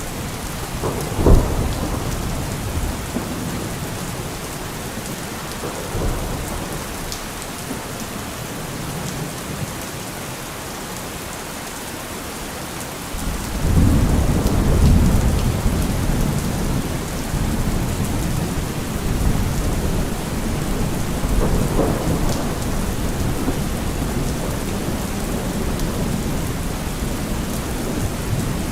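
Thunderstorm: steady rain with thunder, a sharp crack about a second in, then a long low rumble rolling in about halfway through, with further rumbles after it.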